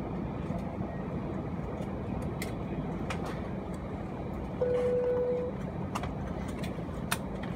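Cabin noise inside an Airbus A319 taxiing after landing: a steady low rumble of the idling engines and rolling airframe, with a few sharp clicks. Just past halfway a single steady tone sounds for about a second.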